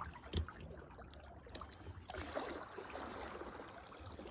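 Faint water sounds around a kayak: paddle and hull splashing and lapping on the sea, with a short knock about half a second in and a longer splashing wash from about two seconds in.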